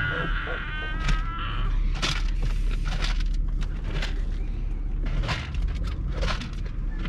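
A large bird's beak pecking hard against a car's bodywork in sharp single knocks, roughly one a second. Under it is the steady low rumble of the car, and a high drawn-out squeal sounds in the first two seconds.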